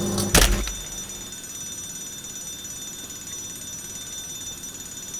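Microwave oven with foil inside running with a steady electrical hum, with one sharp crack about half a second in. The hum then cuts off, leaving quiet room tone with a faint high whine.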